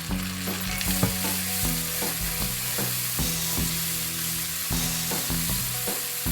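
Chopped tomato sizzling in hot oil with softened onions in a frying pan, being stirred with a spatula; the sizzle gets louder about a second in.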